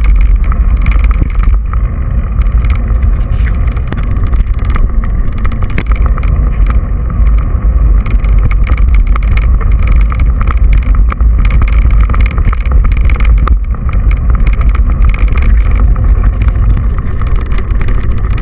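Mountain bike riding over a rough gravel and dirt track, with heavy wind rumble on the microphone and a steady run of small knocks and rattles from the bumps.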